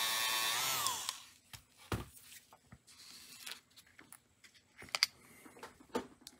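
Dremel rotary tool spinning a buffing wheel loaded with polishing compound at a steady whine, switched off about a second in and winding down. After that come a few light clicks and knocks as the metal locomotive chassis is handled and the tool is set down.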